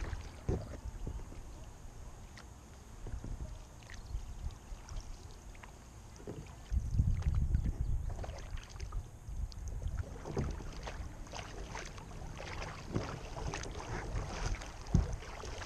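Kayak paddle strokes splashing and dripping in the water, with wind rumbling on the microphone, strongest about seven seconds in.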